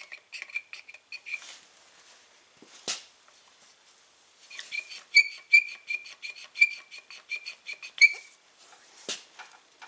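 Hand primer pump on a diesel tractor's fuel filter housing being worked by hand to prime a new, dry filter, giving a short squeak with each stroke, about three a second. Two brief knocks come about three seconds in and near the end.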